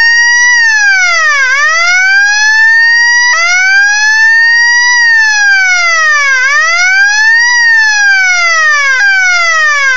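Electronic siren from a Velleman K2604 siren kit, played loud through a Velleman K4001 7-watt amplifier and a small speaker at maximum volume. It gives a wailing tone that sweeps up and down in pitch every couple of seconds, with sudden jumps in pitch about a third of the way in and again near the end.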